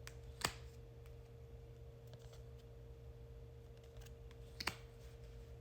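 A deck of oracle cards being handled in a flip-through: two sharp clicks about four seconds apart over a low steady hum.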